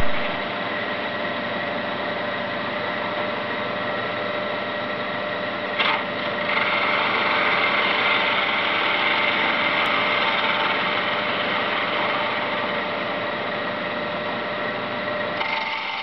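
Homemade wood lathe running steadily on its 1100-watt electric motor, with a steady whirring hum. A short knock about six seconds in, then the sound grows louder and rougher until shortly before the end.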